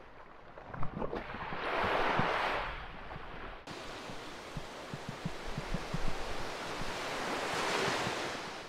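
Small waves washing up a sandy beach, the surf noise swelling twice, with wind buffeting the microphone in short low thumps.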